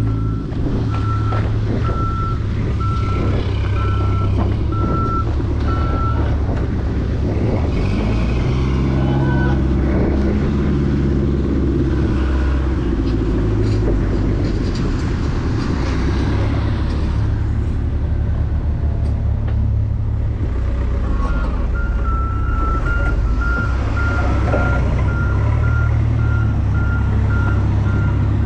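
A truck's engine running close by, with a reversing alarm sounding a steady run of evenly spaced beeps for the first several seconds and again for the last several seconds.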